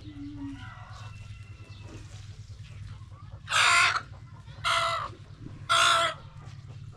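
Three loud, short animal calls about a second apart, over a low steady hum.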